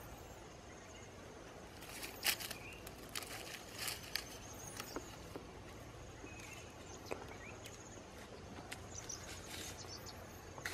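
Scattered scrapes and knocks of a wooden stick and bare feet on stony, muddy ground, clustered a couple of seconds in with a sharp knock, and a few more later. Behind them is steady outdoor background noise with a faint high insect trill that comes and goes.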